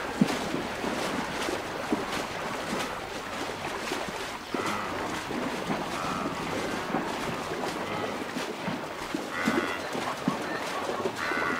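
Heavy splashing and churning water as a herd of wildebeest and zebras plunges through a river. A few short calls rise above the splashing about four and a half, nine and a half and eleven seconds in.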